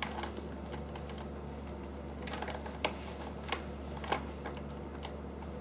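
Scattered light clicks and taps from J-band resistance tubing and its anchor clip as the band is pulled through repeated overhand throwing motions. A steady low hum runs underneath.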